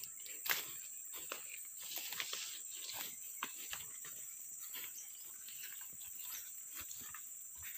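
Footsteps crunching and rustling through dry leaf litter and grass, in irregular short crackles, over a steady high-pitched drone of insects.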